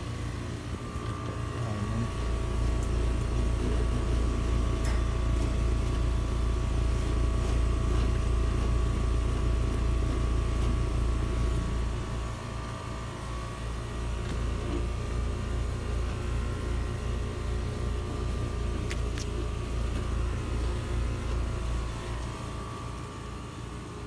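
Newly installed Trane HVAC system running: a steady machine hum over a low rumble that swells about two seconds in and eases off around twelve seconds.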